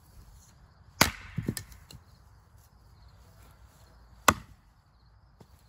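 A dull axe splitting firewood on a chopping block: two sharp chops about three seconds apart, the first followed quickly by two duller knocks.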